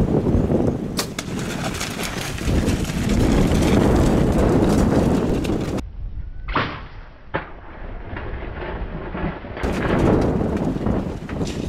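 Wind rumbling on the microphone, broken in the middle by a quieter stretch with two sharp clicks under a second apart.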